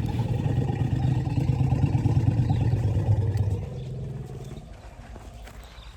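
Asian elephant rumbling: a loud, low, steady call that fades out about four seconds in.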